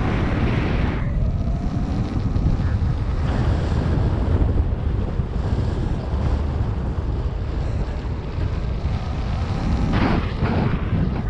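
Wind buffeting the microphone: a steady low rumble, with brief hissier surges at the start and near the end.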